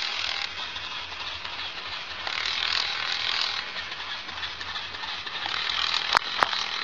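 Small electric motor and plastic gearbox of a battery-powered walking plush horse toy running as it walks: a steady whirring with fine rapid ticking. Two sharp clicks near the end.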